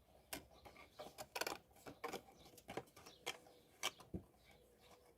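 Cardstock box being folded and its tabs tucked in: light, irregular rustles, creaks and clicks of the paper being handled.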